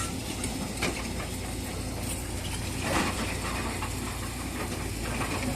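Excavator diesel engines running steadily at rock-clearing work, with two sharp knocks, about one second in and about three seconds in.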